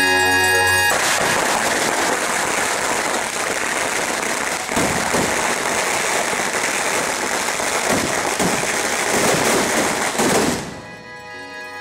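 Dense, rapid crackling of firecrackers going off in quick succession, starting about a second in and cutting off about a second before the end, with bell-like music before and after.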